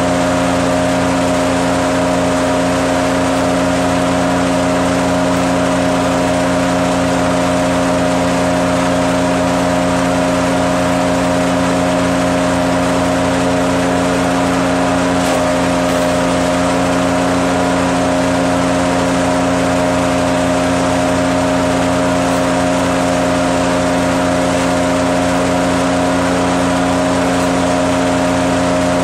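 Garden wood chipper-shredder running steadily with a constant hum, its pitch and level unchanged throughout.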